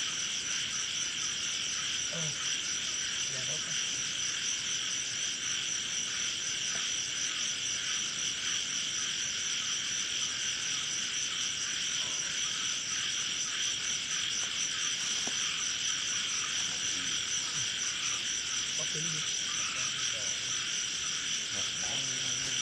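Dense chorus of crickets and other insects: a steady, high, pulsing trill that never breaks, with a few faint low calls scattered through it.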